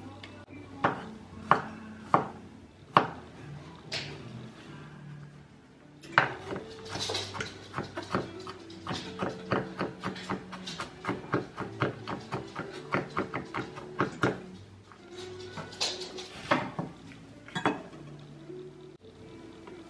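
Kitchen knife chopping green onions and garlic on a cutting board. Slow single chops come first, then a quick even run of about three chops a second for several seconds, then a few more. Background music plays under it.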